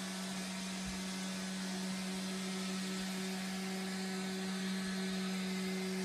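Robot vacuum cleaner running on carpet: a steady motor whir, a constant low hum under an even hiss.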